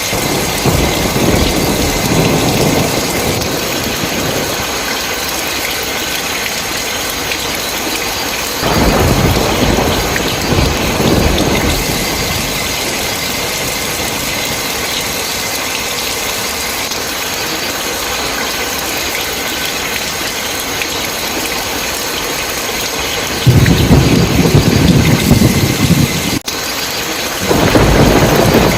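Steady heavy rain with thunder rumbling over it several times: about a second in, again around nine seconds in, and loudest from about twenty-three seconds in, rolling on to the end.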